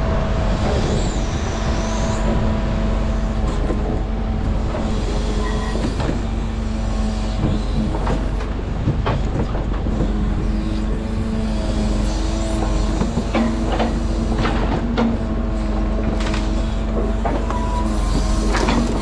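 Mercedes-Benz Arocs truck engine running steadily, with scattered knocks and clatters over it.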